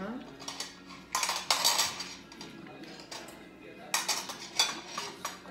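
Cutlery clinking and scraping against dishes, in two short clusters about a second in and about four seconds in.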